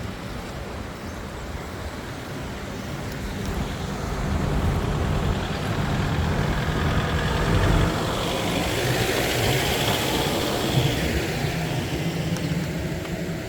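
A motor vehicle's engine running along the road, growing louder from a few seconds in and loudest about two-thirds of the way through, then holding steady.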